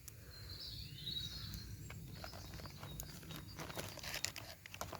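Faint woodland ambience: a bird twitters briefly in the first couple of seconds, over scattered soft ticks and small handling noises.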